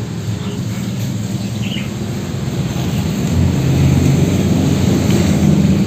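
A motor vehicle's engine running steadily, a low hum that grows a little louder about halfway through. A single short bird chirp comes about two seconds in.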